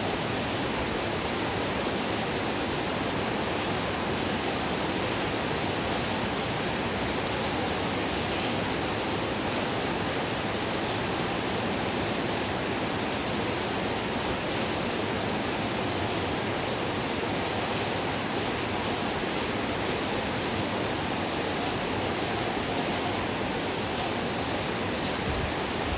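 Heavy rain falling steadily, an even, unbroken hiss of rain.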